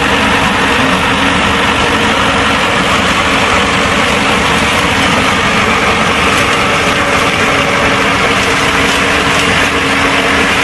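Diesel concrete pump's Deutz engine running steadily, a loud even drone with a constant hum.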